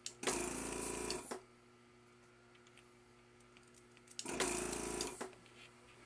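Vacuum desoldering gun's pump running twice, about a second each time, as the trigger is pulled to suck molten solder off a mouse switch's leads.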